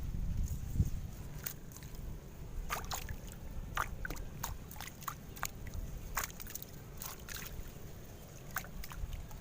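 Water splashing and sloshing in short, irregular bits, with scattered sharp clicks and drips. A low rumble runs underneath.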